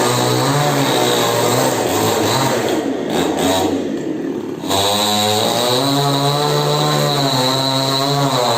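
Chainsaw's small two-stroke engine running at high speed. About three seconds in, its steady tone breaks into a rougher, noisier sound for a second or two, then settles back to a steady high run.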